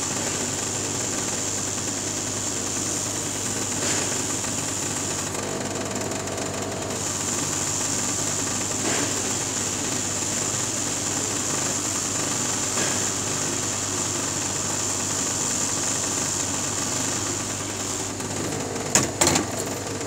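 Hot-air SMD rework gun blowing steadily with a high hiss of air and fan, heating SMD resistors on an inverter control board to desolder them. A few sharp knocks near the end.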